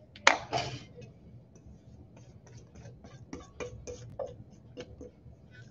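Spatula scraping and tapping against a stainless steel mixing bowl while thick cake batter is tipped into a metal baking pan: a loud clatter about a quarter second in, then a string of light clicks and taps with short metallic ringing.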